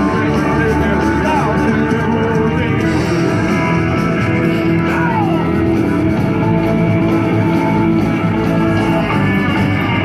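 Rock music with guitar playing, at a steady loud level.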